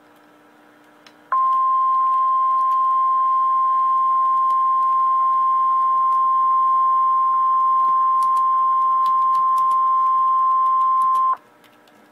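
Emergency Alert System attention signal: a single steady tone of about 1050 Hz, the NOAA Weather Radio warning alarm, held for about ten seconds. It starts about a second in and cuts off sharply, signalling that a weather warning message follows.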